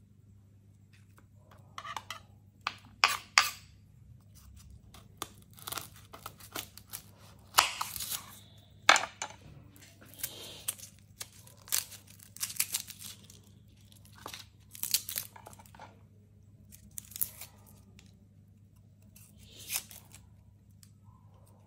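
Dry tearing and crinkling in short, irregular bursts, the loudest about nine seconds in.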